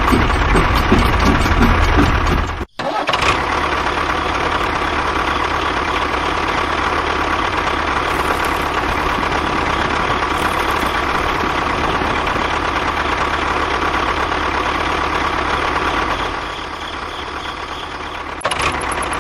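A small motor of a homemade mini construction machine running. It pulses at first, breaks off abruptly about three seconds in, then runs steadily with a constant whine and drops quieter near the end.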